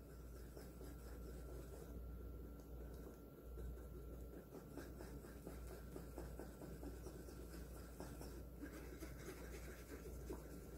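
Wooden spoon stirring and scraping raw eggs against a fine wire-mesh strainer, pushing them through the mesh: a faint, continuous scratching.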